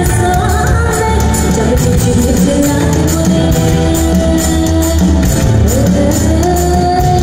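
Live pop band music with a female singer on a microphone, over drum kit and keyboard keeping a steady beat, heard in a large hall.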